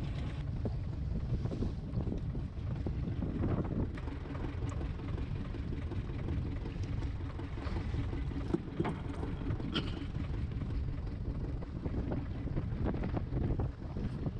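Strong wind buffeting the microphone on a small fishing boat, with the boat's engine running steadily underneath and a few scattered knocks.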